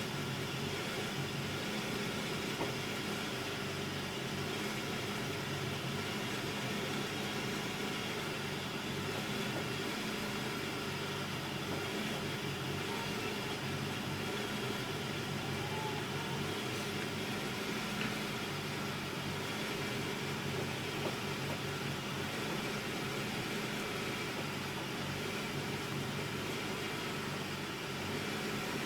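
1999 Acura Integra LS's 1.8-litre four-cylinder engine idling roughly, a steady running note with a few small brief jumps in level.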